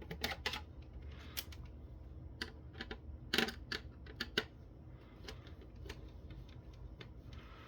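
Irregular small clicks and taps of a hand tool working at the metal shield can on a circuit board, with a short cluster of louder clicks about three and a half seconds in.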